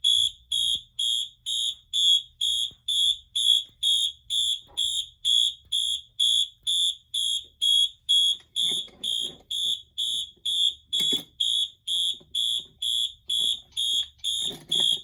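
Wheelock MT multitone fire alarm horn sounding its march-time pattern: a high electronic tone pulsing on and off evenly about twice a second.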